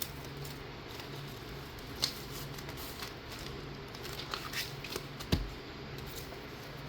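Paper and packing materials being handled at a desk: soft scattered rustles and light clicks, with one sharper knock about five seconds in, over a faint steady hum.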